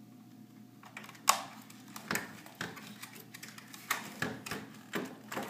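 Irregular sharp clicks and rattles of metal and plastic as a Xeon Phi coprocessor card assembly and its power cables are handled in an open server sled's sheet-metal chassis. The loudest single click comes about a second in.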